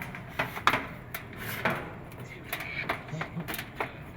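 Irregular clicks and light clatter of small hard parts and tools being handled, about seven sharp knocks spread unevenly over the few seconds, with faint voices behind.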